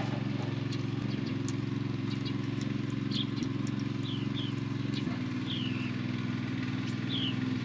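A motor running steadily with an even, low hum, with a few short, high chirps scattered over it.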